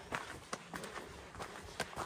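Footsteps of a hiker walking on a rocky dirt trail, a series of crunching steps at a brisk, even pace.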